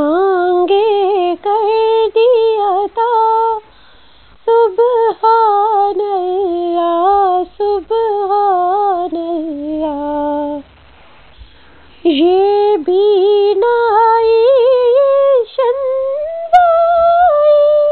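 A woman's solo voice singing an Urdu nazam unaccompanied, a slow ornamented melody of held, wavering notes, with two pauses of about a second.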